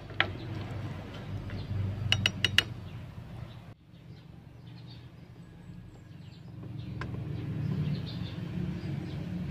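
Light glass clinks from a small glass bowl being handled, with four quick clinks about two seconds in. After a sudden cut, a low steady rumble grows louder, with faint high chirps over it.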